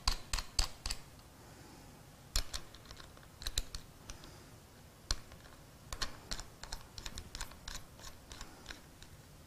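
Scattered light clicks and taps in small irregular clusters as the leads of a battery desulfator are fastened onto the terminal posts of a 12-volt lead-acid battery, the terminal nuts turned and fiddled by hand.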